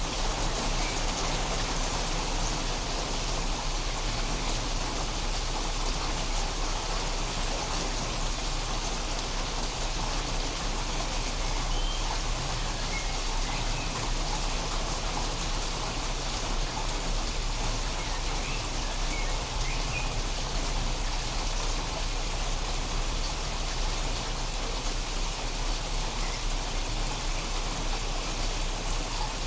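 Steady rain falling and pattering on surfaces, a dense, even hiss with no thunderclap.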